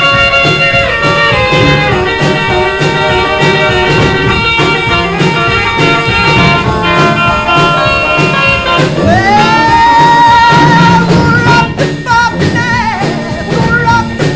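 Instrumental break of a 1950s rock and roll record: a lead instrument solos over bass and drums. About nine seconds in it slides up into a long note held with vibrato.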